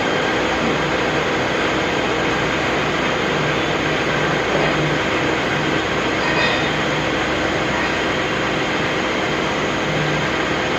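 CNC turning centre running steadily: a constant machine noise with a steady hum and a hiss.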